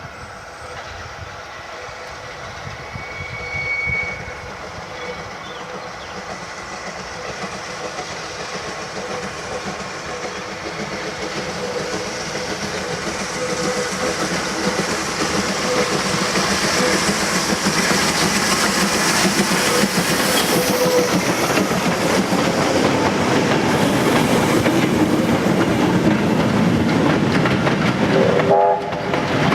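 USATC S160 2-8-0 steam locomotive working hard with a goods train. Its exhaust and the rolling of the wheels and wagons grow steadily louder as it approaches.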